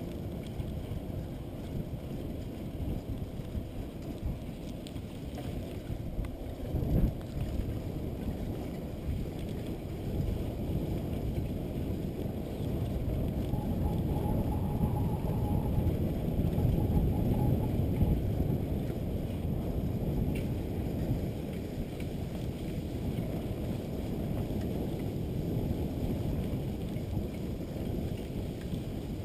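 Wind buffeting the microphone over the rumble of a mountain bike rolling along a dirt trail, with one sharp knock about seven seconds in. The rumble grows louder in the middle.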